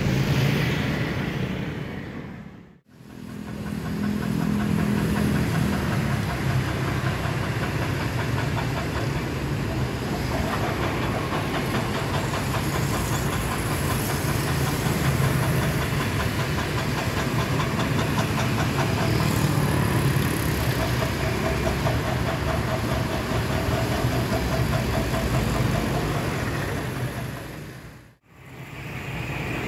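Engine running steadily with a low rumble. It cuts out briefly about three seconds in and again near the end, and a faint steady whine sits over it from about ten seconds in.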